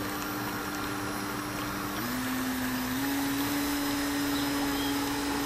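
Small motor of a homemade radio-controlled boat running with a steady whine; its pitch dips slightly about two seconds in and rises again a second later, as the throttle changes.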